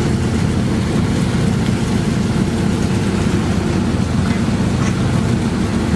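A packed mass of grey mullet thrashing and leaping in a net hauled tight, making a dense, continuous churning splash, with a low steady boat-engine drone underneath.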